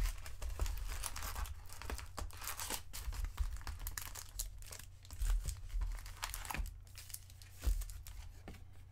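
Foil wrappers of trading-card packs crinkling and rustling irregularly as the packs are pulled out of their cardboard box and handled in a stack.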